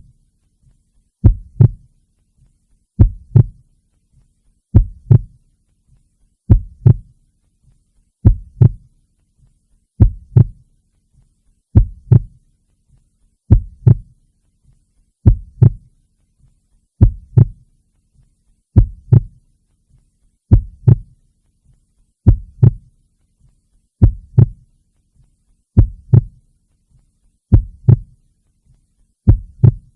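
Slow, steady heartbeat: a lub-dub double thump about every 1.8 seconds, deep and low, with silence between beats.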